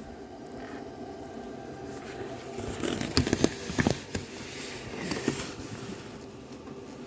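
Handling noise: light rustles and clicks from hands and the phone, with a few sharp knocks about three to four seconds in, over a faint steady hum.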